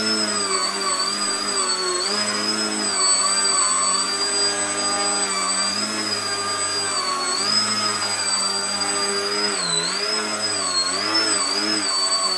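Electric motor and propeller of a foam 3D model airplane hovering nose-up, a steady whine whose pitch wavers up and down as the throttle is worked, with a few quick dips near the end.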